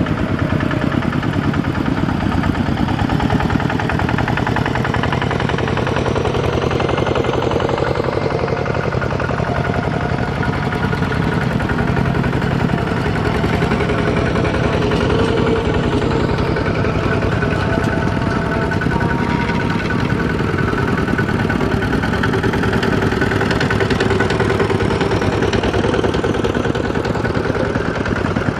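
Single-cylinder diesel engines of several two-wheel walking tractors (Kubota ZT120 type) running steadily under load as they pull loaded trailers past, one after another.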